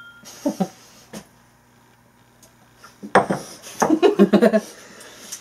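Glasses set down on a wooden bar top with a few light knocks, then a man's short throaty vocal sound about three seconds in, the loudest part.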